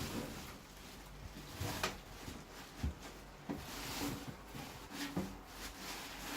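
Handling of a computer case and its packing: faint rustling and scraping with a few scattered soft knocks.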